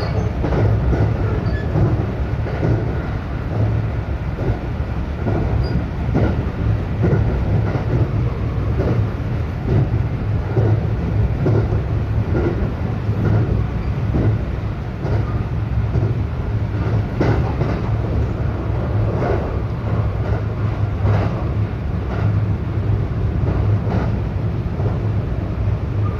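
Local electric train running at speed, heard from inside the carriage: a steady low rumble with the wheels clicking over rail joints, the clicks coming more often in the second half.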